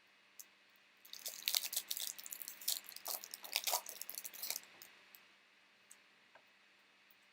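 Foil trading-card pack wrapper being torn open and crinkled: a dense run of sharp crackles lasting about three and a half seconds, then a few scattered ticks.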